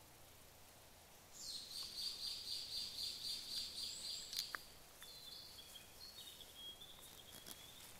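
A bird calling outdoors: a fast run of high chirping notes, about four or five a second, for about three seconds, then thinner high calls that shift in pitch. A single sharp click comes near the middle.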